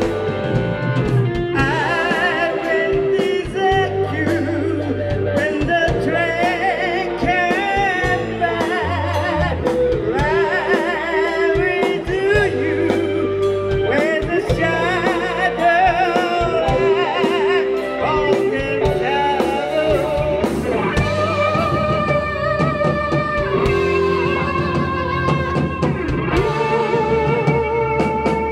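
Live rock band playing: electric guitars, bass guitar and drum kit, with a man singing lead into a microphone.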